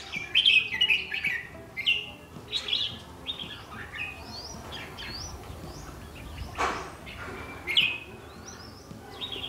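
Caged red-whiskered bulbuls chirping and calling, a busy run of short swept whistled notes several times a second, with a brief noisy burst about two-thirds of the way through.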